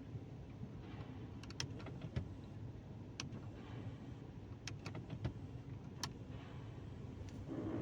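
Ford EcoSport's AC air-direction (mode) control actuator making an abnormal noise as the mode is changed: irregular sharp clicks and ticks over a steady low hum, the sign of a fault in the actuator and its flap mechanism.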